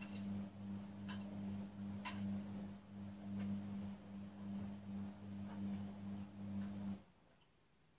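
Steady low electrical hum, a low tone with a couple of higher overtones, with a few light clicks of the paper booklet being handled about one and two seconds in. The hum cuts off suddenly about seven seconds in.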